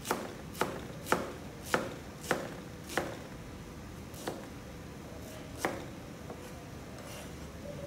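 A steel cleaver chopping shredded cabbage on a plastic cutting board: sharp knocks about twice a second that slow down and stop after about five and a half seconds.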